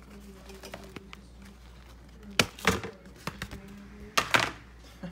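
Rigid pieces of a boxed record set being handled on a countertop: sharp knocks and clatter in two short clusters about two seconds apart, with a few lighter clicks between, over a faint steady hum.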